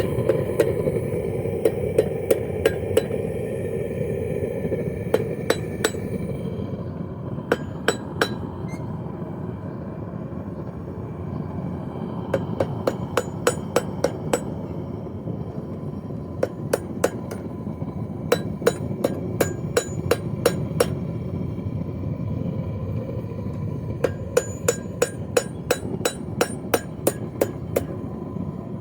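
Hand hammer striking hot railroad-spike steel on an anvil in runs of quick blows, about three a second, each with a short metallic ring, over a steady rumble from the forge.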